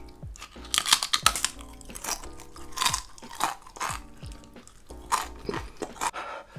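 A person biting and crunching through a thin, crisp black tortilla chip (the Paqui One Chip Challenge chip), then chewing it, with sharp crunches loudest about a second in and again around three and five seconds in. Background music plays under the crunching.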